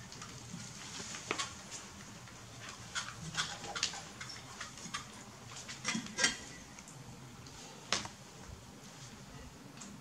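Light clinks and taps of dishes and a metal serving pot's lid being handled, scattered irregularly, with the loudest clink a little after six seconds and another sharp one near eight seconds.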